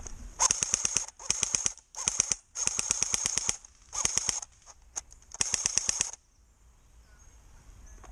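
Airsoft rifle firing a string of short full-auto bursts over about six seconds. Each burst is a rapid, even clatter of roughly fifteen shots a second with a high whine under it, and one burst near the middle is longer than the rest.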